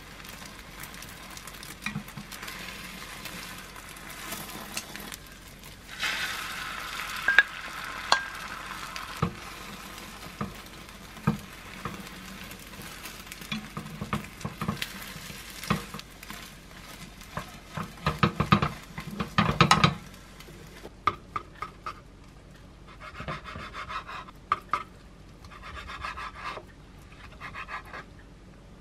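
Beaten egg sizzling in a square nonstick rolled-omelette pan while it is rolled up with wooden chopsticks and a wooden spatula, with sharp taps and knocks of the utensils against the pan, a louder sizzle about six seconds in as the last of the egg mixture goes in, and a cluster of knocks near the twenty-second mark. After that the sizzle stops and a knife slices through the rolled omelette onto a wooden cutting board in several short strokes, about one a second.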